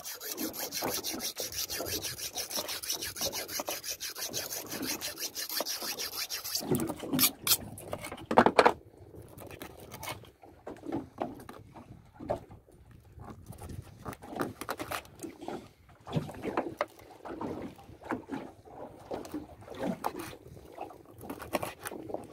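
A knife being sharpened in quick rasping strokes, which stop abruptly about seven seconds in. Then comes a few loud knocks, and after that knives chopping fish on wooden cutting boards in irregular knocks.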